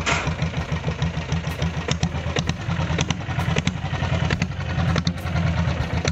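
Royal Enfield Bullet's single-cylinder diesel engine idling with a steady, low pulsing beat and a scatter of sharp clattering ticks.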